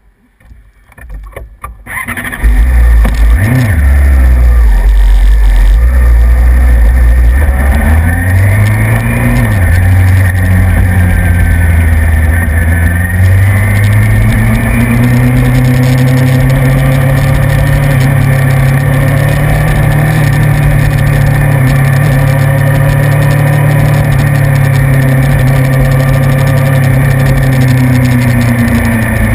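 A vehicle's engine starts about two seconds in and idles, then picks up in pitch twice as the vehicle pulls away, settling into a steady low-speed run.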